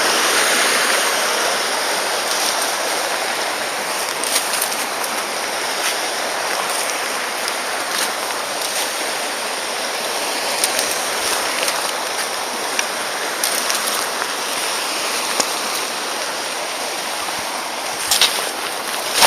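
Mountain stream rushing steadily, with a few sharp clicks and knocks scattered through, the loudest near the end.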